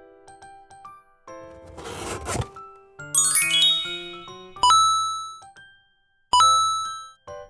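Sound effects: a whoosh about two seconds in, then a glittering run of chimes, then two bell-like dings, each ringing out and fading.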